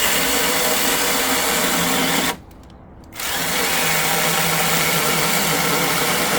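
Battery-powered mini chainsaw running and cutting through wood, a steady motor whine that stops for about a second just past two seconds in, then starts again.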